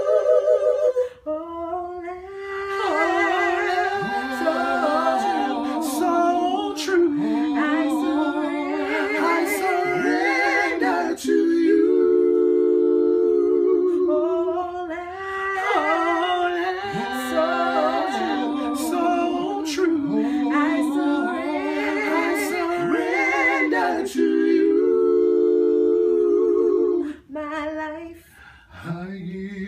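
Family voices singing a gospel song a cappella, with long held notes and wavering vibrato, several notes sounding together in harmony.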